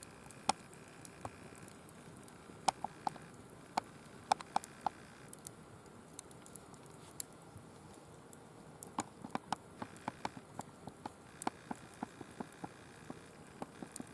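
Firewood burning in a mesh fire pit, crackling with irregular sharp pops over a faint steady hiss.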